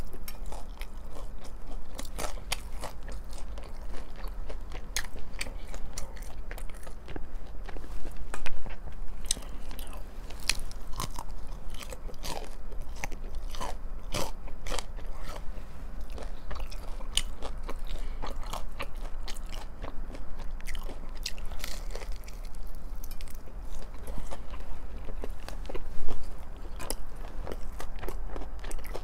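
Close-up chewing and biting of crispy breaded fried chicken strips: many sharp crunches and wet chewing, with two louder crunches about eight seconds in and near the end.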